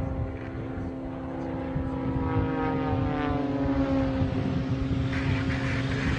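Propeller airplane engine droning steadily, its pitch sliding down through the middle as it passes by.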